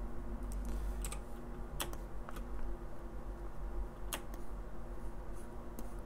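A handful of separate, sharp computer mouse clicks, irregularly spaced, over a steady low hum.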